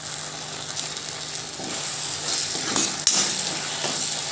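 Chopped vegetables frying in a black iron wok with a steady light sizzle. A few scrapes of a plastic spatula against the pan come about halfway through.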